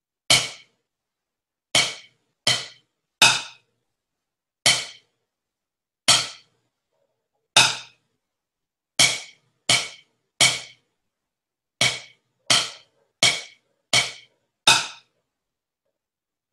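Drumsticks striking a rubber practice pad, playing a bass drum part: about fifteen single sharp taps in a stop-start rhythm, stopping about fifteen seconds in.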